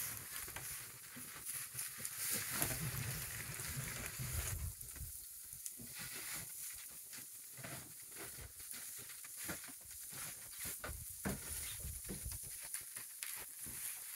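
Goats pulling and chewing dry hay at wooden feeders: a quiet, soft rustle and crackle of hay, with many small ticks.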